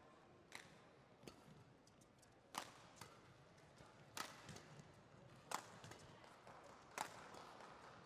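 Badminton rackets striking a shuttlecock in a doubles rally: about seven sharp cracks, a second or so apart.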